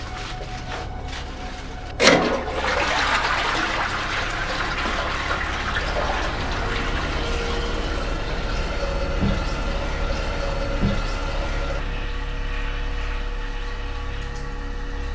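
Toilet flushing: a sharp clunk about two seconds in, then rushing water that gradually eases into the cistern refilling with a steady hiss.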